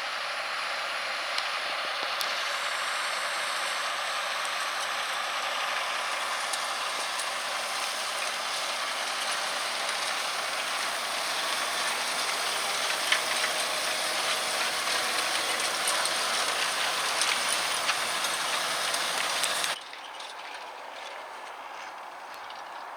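John Deere 6195R tractor working with a Kverneland plough and furrow press: a steady mechanical running noise with scattered clanks and rattles from the implements. About twenty seconds in it cuts abruptly to a quieter level.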